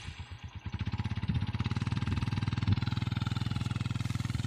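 Motorcycle engine running steadily with a rapid, even exhaust beat that grows louder about a second in.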